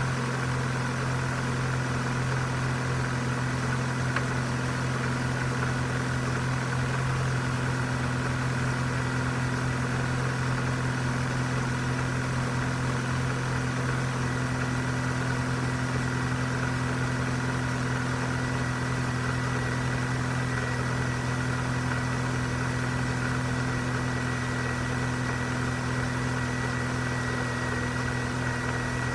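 Vauxhall Corsa C 1.4 16V's four-cylinder petrol engine idling steadily soon after a cold start, running cleanly with no ticking.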